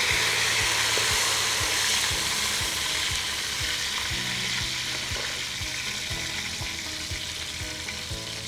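Mint leaves and whole spices (cinnamon, cloves, cardamom, bay leaf) sizzling in hot oil and ghee in an aluminium pot. The sizzle is loudest at the start, as the fresh mint hits the oil, and slowly dies down.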